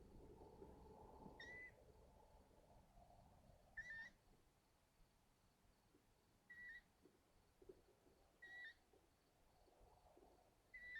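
Long-eared owl young giving their short, high, squeaky begging call five times, about every two seconds, over faint rustling in the nest.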